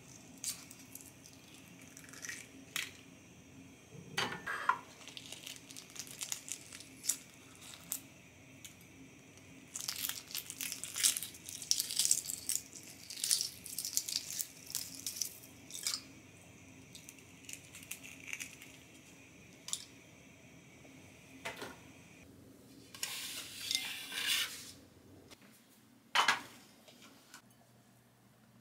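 Hard-boiled eggs being cracked and peeled by hand: repeated crackling and crinkling of eggshell in clusters, with small clicks and taps against a glass bowl of water. The shell comes away easily after a cold-water soak.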